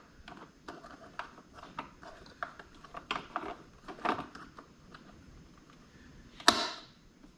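Scattered light clicks and taps of small parts being handled, with one sharp, louder click about six and a half seconds in.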